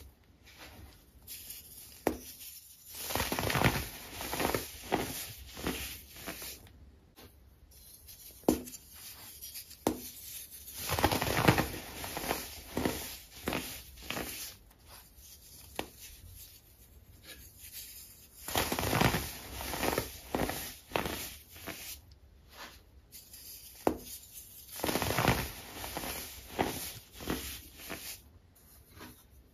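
Hands crushing and crumbling dyed baking soda, giving soft, gritty crunches in uneven bursts as the packed powder breaks apart and falls through the fingers.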